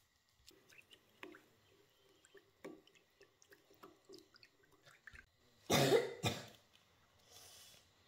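Chopsticks stirring briskly in a small ceramic bowl, with light clinks and taps against the rim. About six seconds in, a child coughs twice in quick succession.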